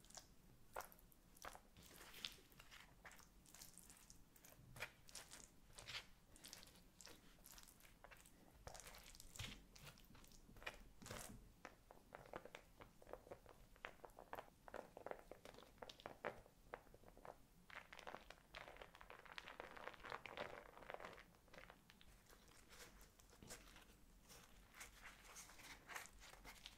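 Faint crinkling and crunching from food being handled by hand, made up of many small clicks and rustles, thickening into longer rustling a little past the middle.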